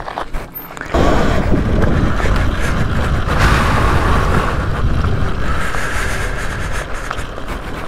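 Wind buffeting the microphone, with rumble from riding an electric dirt bike along a trail. It starts suddenly about a second in and stays loud.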